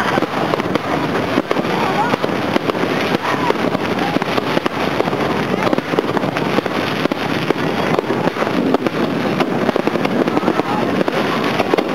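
Aerial fireworks crackling: a dense, continuous stream of rapid small pops, with people's voices underneath.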